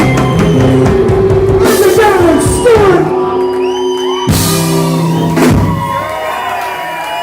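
A live band playing amplified music in a large room, with drums and cymbal crashes. It has held notes and sliding pitches, and three crashes, about two, four and five and a half seconds in.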